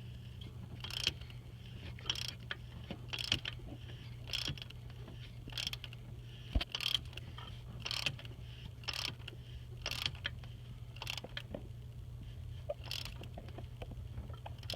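Ratchet wrench clicking in short strokes, about one a second, tightening an injector-cup tool down into a Ford 6.0 diesel cylinder head until it bottoms out. A steady low hum runs underneath.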